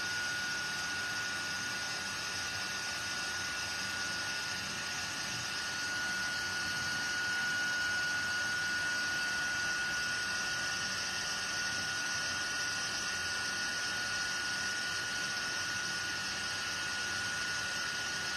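Embossing heat gun running steadily, its fan blowing an even hiss with one constant high whine, as it heat-sets white embossing powder on cardstock.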